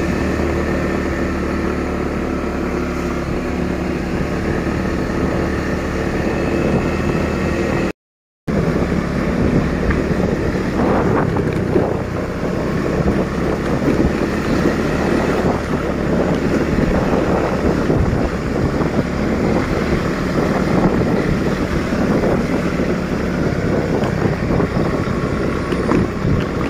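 Motorcycle engine running steadily while riding along, with wind buffeting the microphone. The sound drops out for about half a second some eight seconds in.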